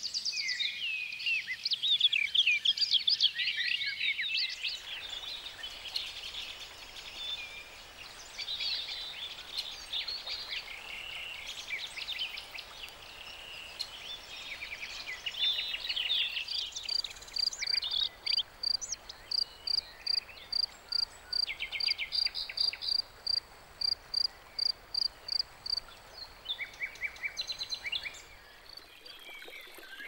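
Birdsong: many short, high chirps and trills, busiest in the first few seconds. About halfway through, a high call starts repeating evenly, two to three notes a second, and stops a few seconds before the end.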